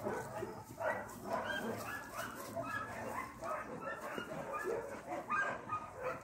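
A dog whining and yipping in a string of short pitched cries, several a second.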